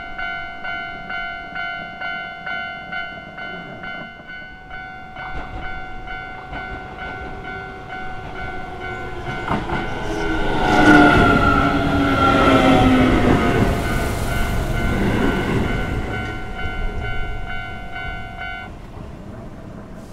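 Japanese level-crossing warning bell ringing at about two dings a second while an electric Keio train passes over the crossing. The train is loudest about ten to fifteen seconds in, with a whine that falls in pitch as it goes by. The bell stops near the end.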